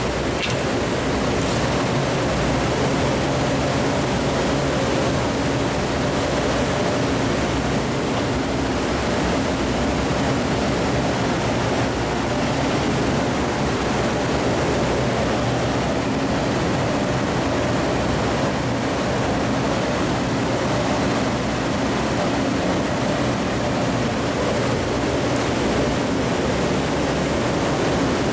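Steady rushing noise with a low, even machine hum underneath, unchanging throughout, and a couple of faint clicks near the start.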